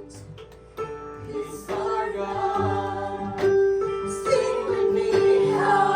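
Live worship music: a band with singers, female voices among them, holding long notes in a slow praise song.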